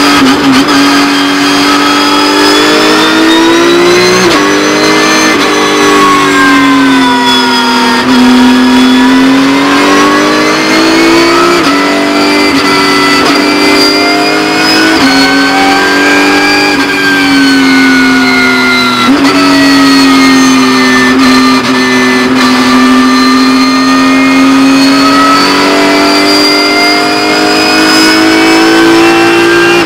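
Porsche 911 GT3 Cup race car's flat-six engine, heard from inside the car, running hard. Its pitch climbs and falls continuously as the car accelerates and slows, with abrupt steps at gear changes every few seconds.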